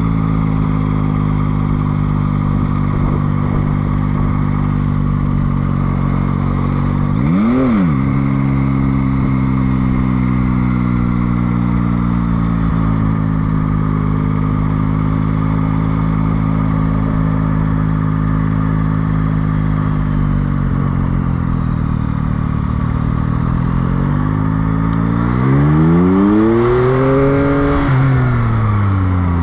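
Motorcycle engine running steadily under way, with a quick sharp blip of revs about seven seconds in and a long climb in revs near the end that peaks and then drops away.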